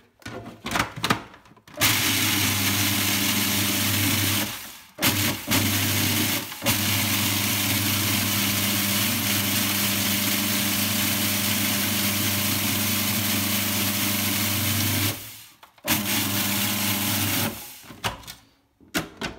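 Electric kitchen chopper motor running as it crushes Doritos tortilla chips into crumbs. It is switched on and off: a short run, two brief pulses, one long steady run of about eight seconds, then a last short run near the end. A few clicks of handling come just before it starts.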